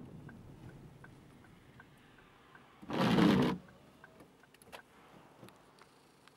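Road noise inside a car driving on a wet road in the rain, with faint quick ticking and a low rumble. About three seconds in there is one loud whoosh of noise lasting about half a second.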